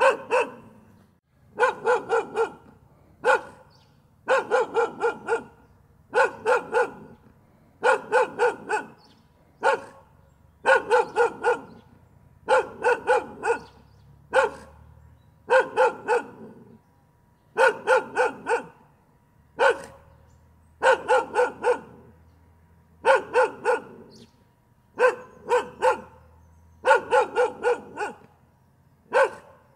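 A dog barking continuously, in quick runs of three to five barks with single barks between, each run followed by a pause of about a second.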